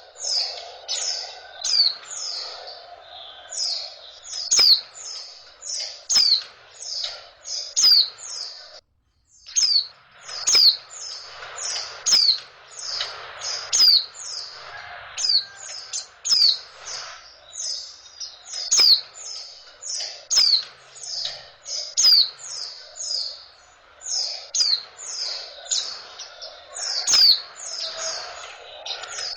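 Female white-eye (pleci) calling: short, high chirps, each sliding down in pitch, repeated about twice a second, with a brief break about nine seconds in. This is the female call used to rouse male pleci.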